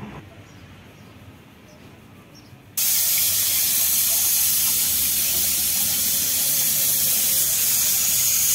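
Pressure cooker on a wood fire releasing steam through its weight valve: a loud, steady hiss that starts suddenly about three seconds in, the sign that the cooker has come up to pressure. Before it, only quiet background.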